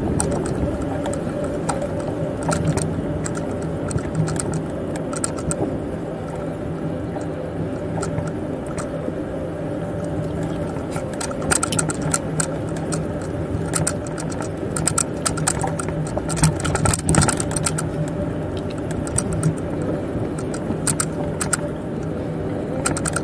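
Bicycle riding along a path: a steady rolling hum from the tyres, with frequent sharp rattling clicks from the bike jolting over bumps, busiest about halfway through.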